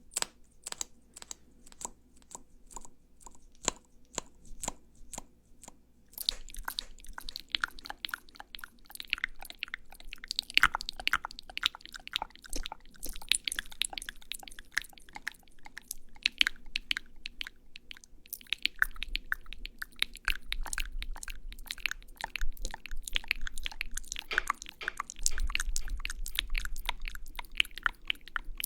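Close-miked ASMR lipstick-application sounds: sticky, wet clicks and crackles, sparse at first and then dense and continuous from about six seconds in.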